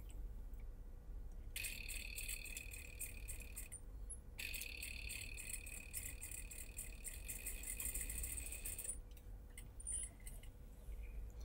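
Industrial sewing machine running, stitching a sleeve seam in two spells with a short pause about four seconds in, then stopping a little before nine seconds in. The stitching rattle is faint.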